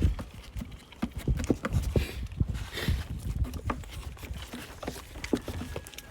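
Baby goats' hooves clattering and scuffling in irregular knocks and thumps as the kids jostle to nurse from their mothers.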